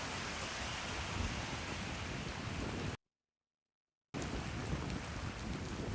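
Steady hiss of heavy rain. It cuts to dead silence for about a second around three seconds in, then comes back just as before.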